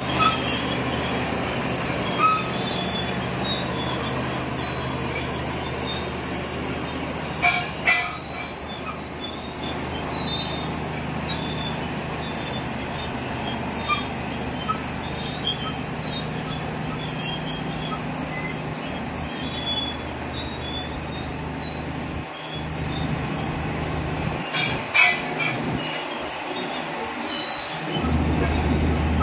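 D155A crawler bulldozer running, with a steady diesel engine drone and a high steady whine. A few sharp metallic clanks come through, a pair about eight seconds in and another pair later on.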